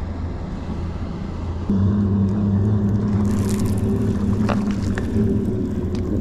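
Boat motor running steadily, a low drone that gets louder and takes on a clear pitch about two seconds in, then holds.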